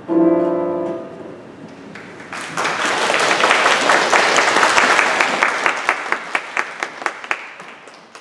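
A grand piano rings out a last chord that fades within about a second. About two seconds in, the audience starts applauding, and near the end the applause thins to a few scattered claps.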